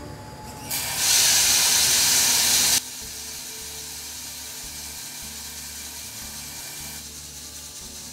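A 3 kg charge of green coffee beans rushes from the hopper into the roaster drum as a loud, even hiss for about two seconds, cutting off abruptly. After that the near-infrared roaster's drum and fan run steadily and more quietly.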